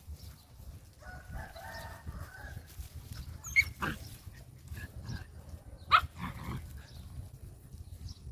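A dog barks twice, sharp and loud, about three and a half and six seconds in, after a short high-pitched tone about a second in.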